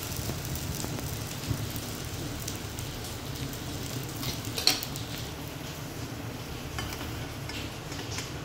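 Semolina batter frying in a little hot refined oil in a small aluminium pan, sizzling steadily. About halfway through there is one sharp metal clink, as an aluminium lid is set on the pan.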